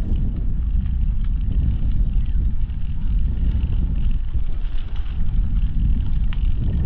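Steady low rumble of wind buffeting the microphone, mixed with tyre noise from a bicycle rolling along a paved towpath.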